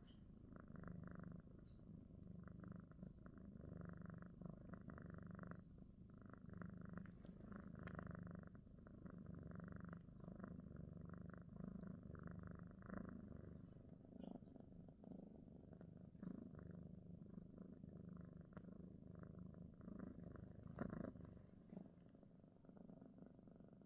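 Domestic cat purring close by in a steady, snore-like rumble that swells and fades with each breath, growing softer in the second half. One brief knock sounds near the end.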